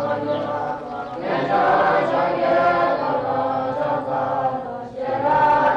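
Voices chanting together in long held notes as background music. A louder phrase swells in about a second in, and a new phrase starts just before the end.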